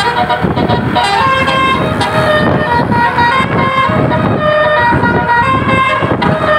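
Tour bus 'telolet' multi-tone air horn playing a tune of quickly changing notes, over the noise of the vehicle's engine.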